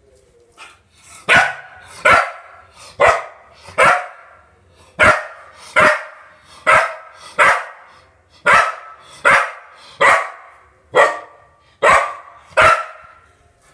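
A dog barking repeatedly at an unfamiliar object, about fourteen sharp barks at a steady pace of roughly one a second.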